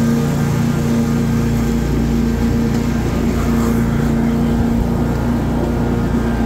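Stand-on commercial lawn mower running steadily at full throttle while cutting grass, a constant loud engine hum with blade noise.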